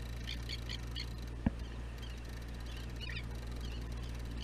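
Gulls giving short, high calls several times over the steady low hum of the boat's engine, with a single sharp knock about a second and a half in.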